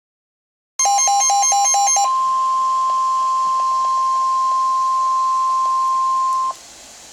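Midland WR-120EZ weather alert radio sounding a NOAA Weather Radio alert: about a second of rapid beeping, then the steady 1050 Hz warning alarm tone held for about four seconds before it cuts off. The tone signals that a warning, here a severe thunderstorm warning, is about to be read.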